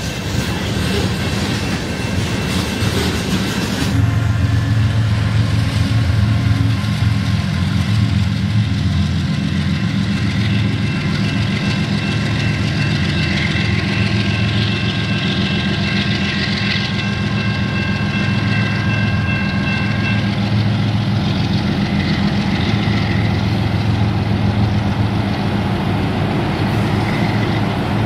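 Canadian National diesel freight locomotive working as it leads a train of tank cars: a loud, steady low engine drone with rail-car noise. A couple of faint steady high tones stop about two-thirds of the way through.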